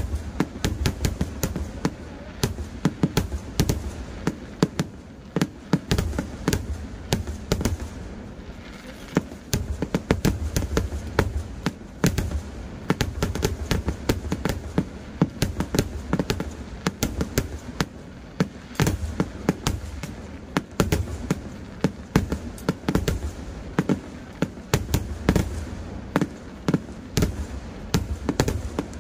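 Kerala temple-festival fireworks (vedikkettu) going off without a break: a rapid, irregular string of sharp bangs and crackles, several a second, over a continuous low rumble.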